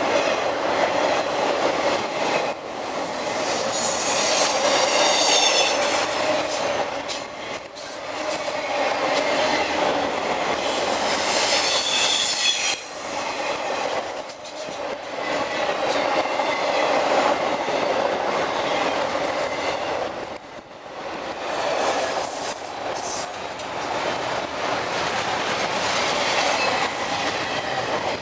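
CSX intermodal freight cars rolling past with steady wheel noise and clacking over the rail joints. High-pitched wheel squeals break in several times, around 4 to 6 seconds, about 12 seconds and briefly near 22 seconds.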